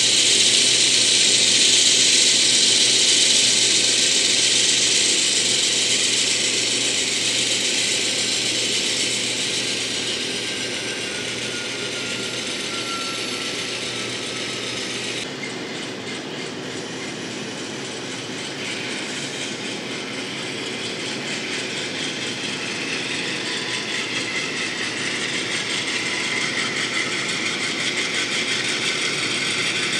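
N-scale model diesel locomotives running along the track, their motors and gears whirring and wheels clattering on the rails. Loudest as they pass close at the start, fading in the middle and growing louder again near the end.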